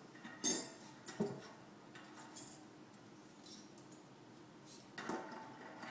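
Bicycle cassette sprockets and spacers clinking as they are slid onto a freehub body: a handful of separate sharp metallic clicks and jingles, the loudest about half a second in.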